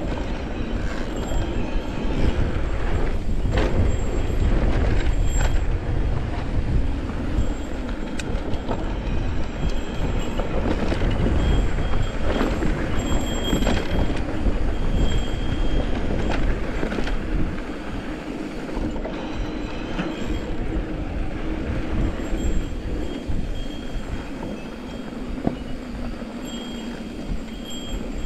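Mountain bike descending a rocky dirt singletrack: a steady rumble of tyres over dirt and stones, with the bike rattling and knocking over bumps and wind on the microphone. It is loudest through the first two-thirds and eases somewhat after about 17 seconds.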